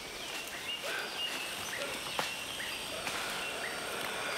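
Rainforest ambience: short, high chirping calls, likely birds, repeat roughly every half second over a steady background hiss, with a single sharp snap about two seconds in.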